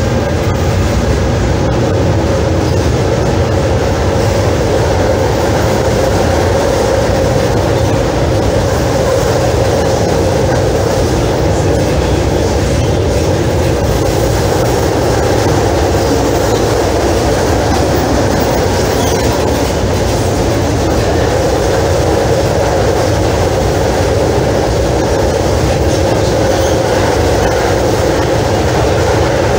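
Tatra KT3UA tram car running at speed, heard from inside the passenger saloon: a steady, loud rolling rumble of wheels on rails and running gear, unchanging throughout.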